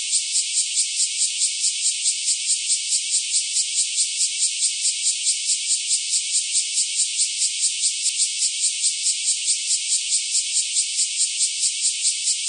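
Cicada song: a high, dense buzz pulsing evenly about five times a second.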